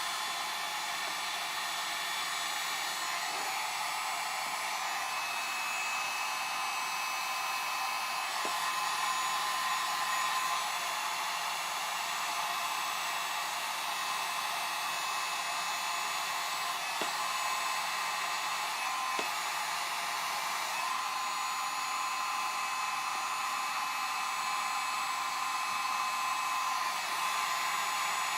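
Handheld hot-air blower running steadily: an even rush of air with a thin, steady whine, heating vinyl film as it is laid over a car's side marker lens. The level steps up slightly about nine seconds in, and a few faint ticks sound over the top.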